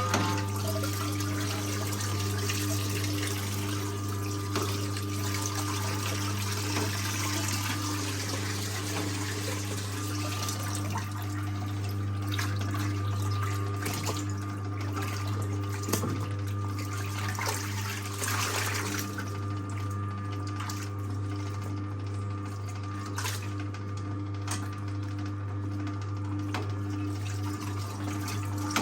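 1958 Hotpoint Empress washing machine running with a steady motor hum while water splashes and trickles. A few sharp knocks come through.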